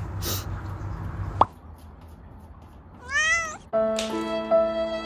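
A domestic cat meows once about three seconds in, a short call that rises and then falls in pitch. A brief tap comes a second and a half in, and soft string music starts just after the meow.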